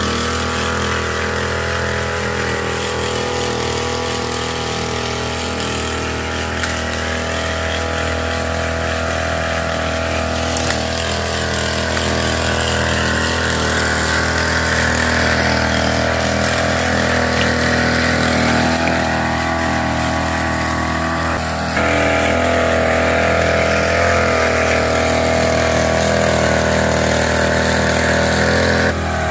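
Small engine of a knapsack power sprayer running steadily at working speed as it sprays, its pitch wavering a little. It gets louder about three-quarters of the way through.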